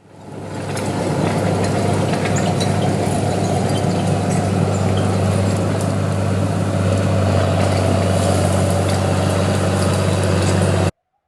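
Cat Drott crawler loader's diesel engine running steadily at working revs, with scattered light clinks. It fades in at the start and cuts off suddenly near the end.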